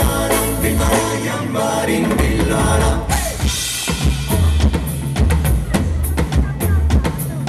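A live band playing, with a drum kit and bass under a melody. About three seconds in, the melody drops away and the drums and bass carry on in a steady beat.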